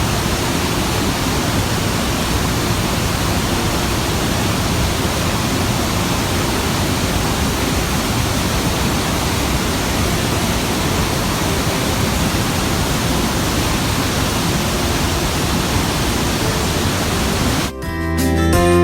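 Iguazú Falls roaring: a loud, steady, even rush of falling water. It cuts off suddenly near the end and guitar music begins.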